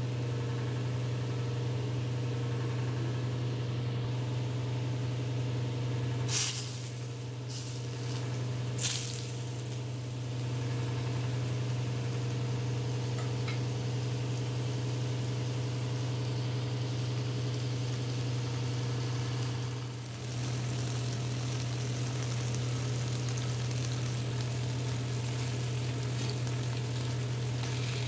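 Rohu fish pieces shallow-frying in mustard oil in a nonstick pan, sizzling over a steady low hum. Two sharp knocks come about six and nine seconds in, and the sizzle grows brighter after them.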